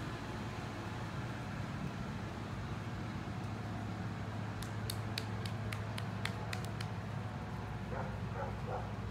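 Steady low background hum, with a quick run of about nine sharp ticks a little past the middle and a few faint, high Labrador whimpers near the end.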